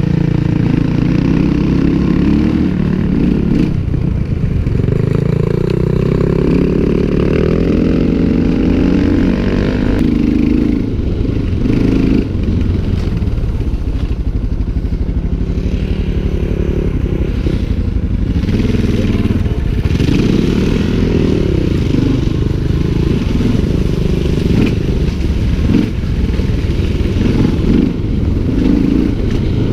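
Motorcycle engine heard from on board as the bike is ridden, the revs rising and falling with the throttle, over steady road and wind noise.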